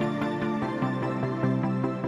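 Soft instrumental background music: sustained notes moving through a slow chord progression, with no bass.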